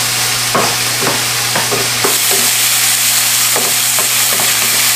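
Diced pork sizzling in chili oil and oyster sauce in a wok, with a wooden spatula stirring and scraping the pan in short, irregular strokes over a steady hiss.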